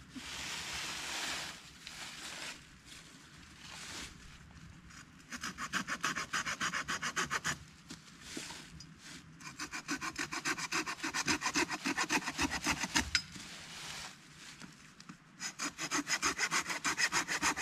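A hand saw cutting through a dead branch for firewood, in three bouts of quick, even back-and-forth strokes with short pauses between them.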